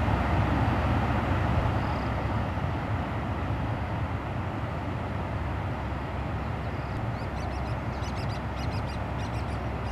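Steady outdoor rushing noise with a low rumble underneath. Faint high bird chirps come in over the last few seconds.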